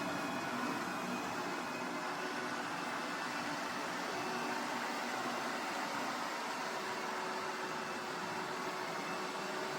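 Robot vacuum cleaner running, a steady whir of its suction fan with a faint constant whine.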